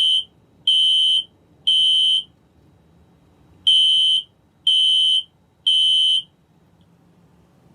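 Smoke alarm being tested, sounding a shrill high beep in the temporal-three evacuation pattern: three half-second beeps about a second apart, a pause, then three more. It then stops.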